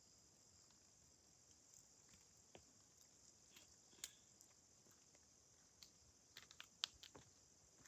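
Near silence: a faint, steady high-pitched insect chorus, with scattered light clicks and scuffs that bunch together about six to seven seconds in.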